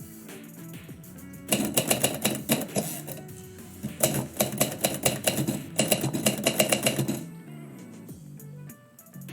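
Manual typewriter keys clattering in quick runs of strikes, three bursts of typing of a second or two each, with pauses between.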